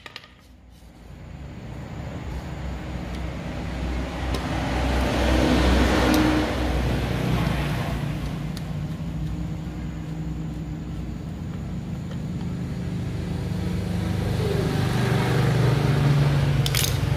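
Electric motor of a handheld wood router running, growing louder over the first several seconds, then holding steady and rising again near the end.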